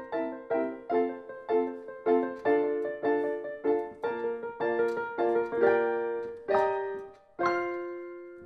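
Background instrumental music, with notes struck about twice a second and a long chord fading out near the end.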